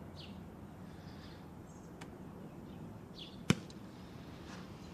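A football being punted: a single loud, sharp smack about three and a half seconds in, over low outdoor background noise.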